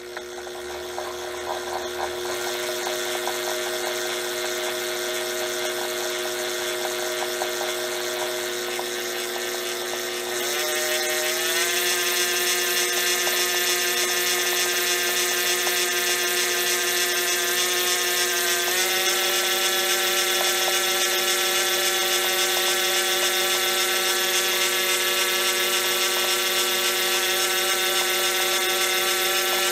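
Treadmill DC motor driving a Craftsman 109 mini lathe through a V-belt on its first test spin, with a steady whine and hum. The motor's pitch and loudness step up about ten seconds in and again about nineteen seconds in as the speed is raised. The owner doesn't like the way it sounds.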